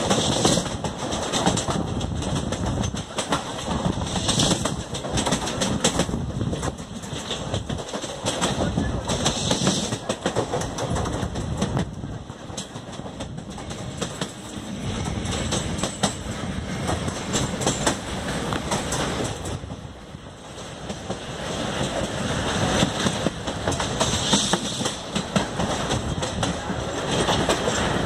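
Wheels of a passenger express train running at speed over the track, a continuous dense clatter of rail joints over the rumble of the coach, heard from an open coach doorway. The sound dips briefly about two-thirds of the way through.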